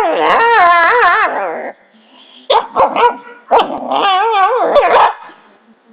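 Pet dog vocalizing: a long cry whose pitch wobbles rapidly up and down, several short barks about two and a half seconds in, then another long wobbling cry.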